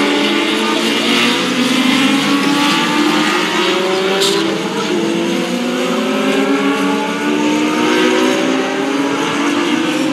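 Several Legends race cars running with their Yamaha motorcycle engines, several engines overlapping and rising and falling in pitch as they accelerate and lift around the track.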